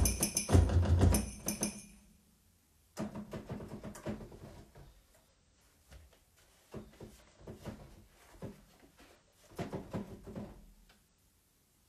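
A drum beat plays for about two seconds and stops abruptly. After a moment of near silence come scattered soft, irregular taps and knocks of fingers on keyboard keys and controls.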